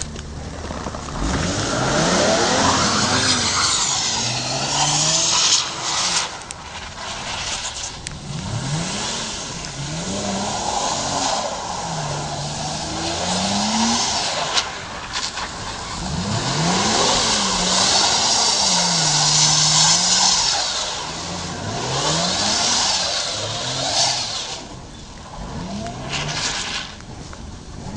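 Toyota Chaser's straight-six engine revving up and dropping back again and again, with the rear tyres squealing in long stretches as the rear-wheel-drive car slides. The squeal comes and goes several times and is loudest about a third of the way in and again past the middle.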